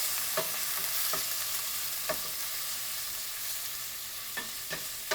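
Bacon, onion, garlic and brandy-soaked raisins sizzling in olive oil in a sauté pan as the brandy cooks off, stirred with a wooden spoon that knocks against the pan about six times.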